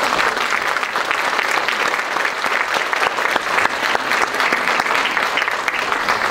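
Audience and chorus applauding: dense, steady clapping from many people, which holds throughout.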